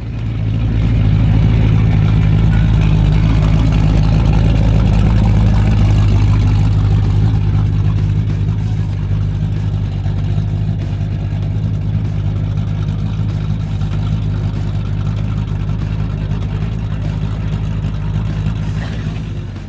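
A muscle car's engine running at a steady idle, loud and close, with an even low pitch and no revving. It eases off slightly after the first several seconds.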